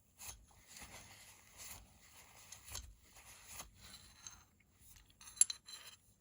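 Parts of a disassembled folding knife being handled and cleaned: faint scraping and rustling, with light clicks and one sharp metallic click a little over five seconds in.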